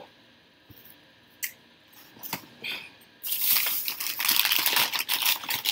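A few light clicks, then, about three seconds in, loud continuous crinkling and rustling of takeout food packaging being unwrapped and handled.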